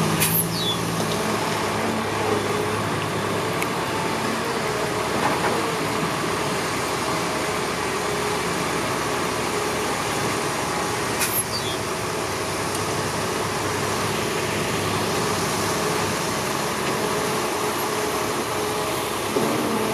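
Heavy diesel machinery, dump trucks and an excavator, running steadily. Two brief high falling squeaks come through, one near the start and one about halfway.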